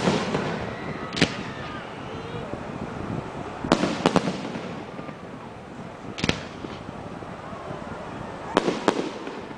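Aerial firework shells bursting overhead: sharp bangs, about eight in all, coming singly and in quick pairs and triples, with a steady haze of background noise between them.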